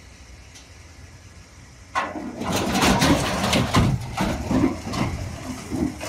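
A heavy vehicle engine running low, then suddenly much louder and rougher from about two seconds in, with irregular knocks and rattles.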